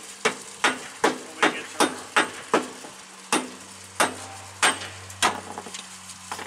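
Hammer tapping in a steady rhythm, about two to three sharp blows a second, thinning to slower, scattered knocks after about three seconds, over a steady low hum.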